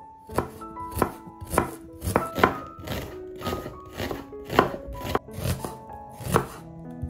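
Chef's knife slicing a peeled onion into half rings on a wooden cutting board, each cut ending in a sharp knock of the blade on the board, about two a second.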